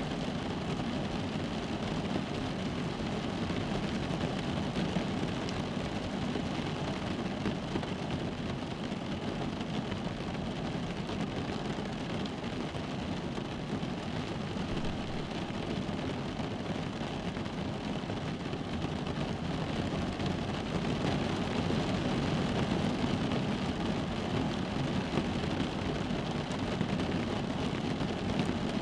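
Rain falling on a car's roof and windows, heard from inside the cabin as a steady, dense patter that swells a little about two-thirds of the way through.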